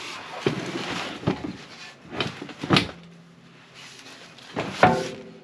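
A handful of sharp clunks and knocks, about five in all, the loudest near the end with a short ring after it: a rear bumper and its mounting hardware being handled and knocked against the mounts while being fitted.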